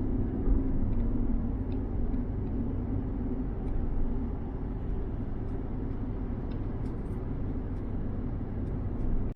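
Steady low rumble of road traffic, with a faint hum and a few light ticks above it.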